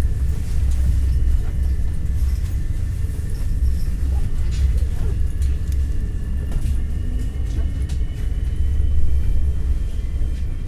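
Cabin rumble of an NS ICNG electric intercity train running along the track, a steady deep rumble with a faint steady whine above it and occasional light clicks.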